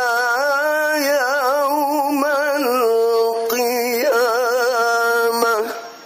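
A male qari chanting Quran recitation (tilawah) in the ornamented mujawwad style, amplified through a microphone: long held notes broken by rapid wavering turns. There is a short break about three and a half seconds in, and the phrase ends shortly before the close.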